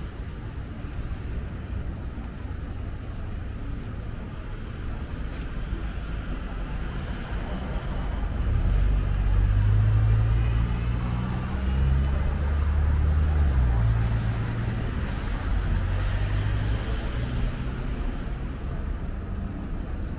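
City road traffic passing, a steady noise of cars, with a heavy vehicle's low engine rumble swelling about eight seconds in and easing off toward the end.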